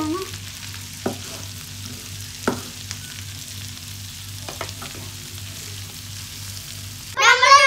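Sweet corn kernels frying in butter in a pan, a steady faint sizzle as they are stirred with a wooden spatula, with a few sharp knocks against the pan. A child's voice starts near the end.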